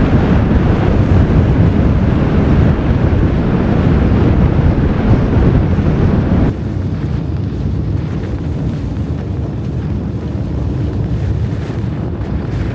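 Strong blizzard wind rushing and buffeting the microphone as a steady, loud noise, heaviest in the low end. It drops a little about six and a half seconds in.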